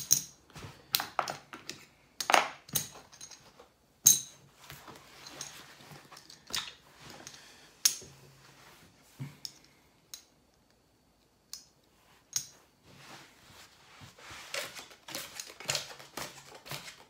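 Casino chips clicking against each other as they are picked up and stacked, with playing cards sliding and tapping on the felt as a hand is cleared and a new one dealt. The sharp clicks come irregularly, with a quieter stretch near the middle.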